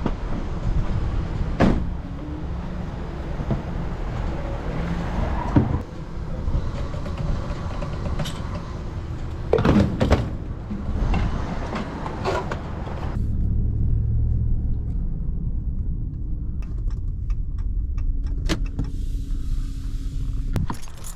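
Road vehicle driving, with steady low engine and road rumble and a few short knocks. About thirteen seconds in the higher hiss falls away, leaving only the low rumble.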